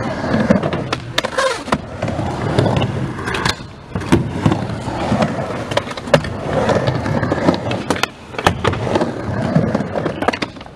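Skateboard wheels rolling back and forth on a wooden ramp, a rumble that swells and fades with each pass, broken by sharp clacks of the board.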